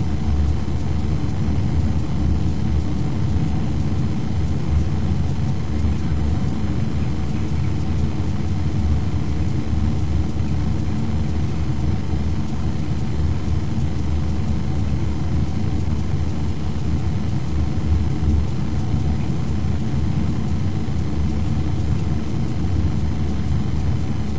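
Steady low rumble with a faint hum, unchanging throughout.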